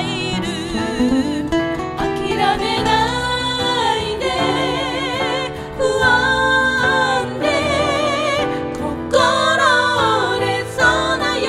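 A woman singing a melody with wide vibrato, accompanied by piano and acoustic guitar.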